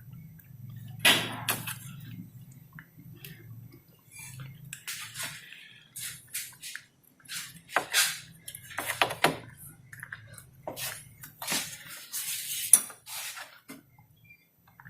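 Hand tools and metal scooter parts clinking and clanking irregularly as the scooter is dismantled to take its engine out, with sharper knocks about a second in, around eight to nine seconds, and near the end.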